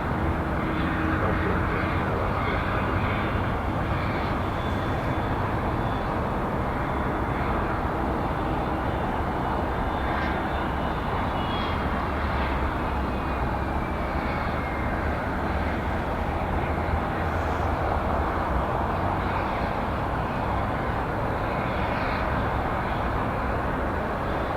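Jet airliner engines running, a steady rushing noise, with a faint whine gliding down in pitch about halfway through.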